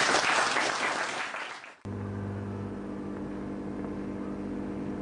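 Audience applauding, cut off abruptly about two seconds in, followed by a steady low drone of several held tones.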